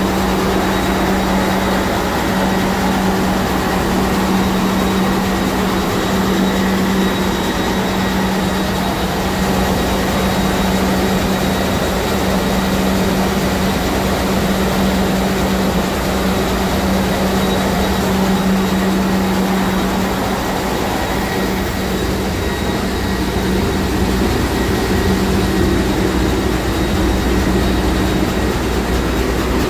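Sulzer 6RTA62 two-stroke slow-speed marine diesel running at full speed, heard close by its VTR turbocharger: a loud, steady engine-room din with a constant low hum and faint high whine tones.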